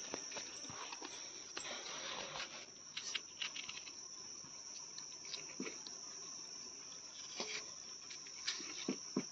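Knife cutting through watermelon flesh and rind, with pieces set down on a steel plate: scattered soft clicks and taps, a few more about three seconds in and again near the end, over a steady high-pitched background tone.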